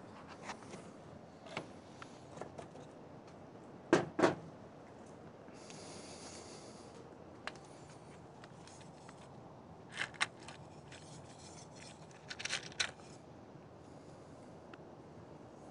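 Handling noises: scattered clicks and knocks of small objects and the phone being moved about on a cluttered workbench, with two sharp knocks about four seconds in, a short rustle around six seconds, and more clicking near the middle and toward the end.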